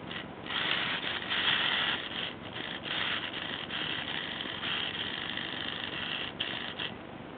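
Small electric motors and drivetrain of a motorized Lego tank running as it drives, a high whir broken by several short gaps.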